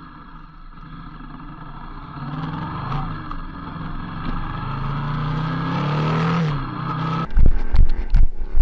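Yamaha MT-07 parallel-twin motorcycle engine under way, heard from a camera on the bike, growing louder and climbing in pitch as it accelerates, then easing off. Near the end it cuts to loud, rough buffeting noise.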